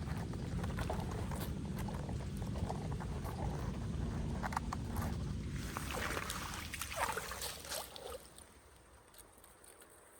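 Floodwater rushing and splashing at a storm drain, with scattered knocks and splashes as debris is pulled out by hand. It falls away to a faint hiss about eight seconds in.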